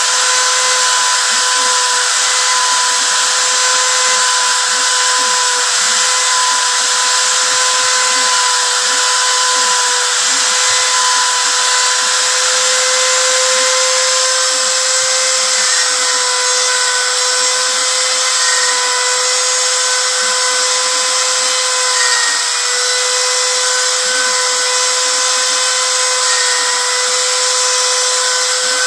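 Small CNC router's spindle motor running at a steady high pitch while engraving, with a continuous hiss of cutting.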